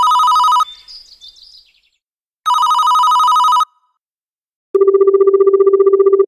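Telephone ringtone sound effect: two warbling rings, each about a second long and two seconds apart, then from near five seconds a lower, rapidly pulsing buzzing ring.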